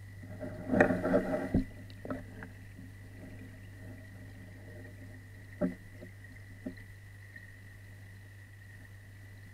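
Muffled knocks and rubbing on an underwater camera housing in a fish pond: a loud cluster of knocks about a second in, then a few single clicks. A steady low hum with a faint high tone runs underneath.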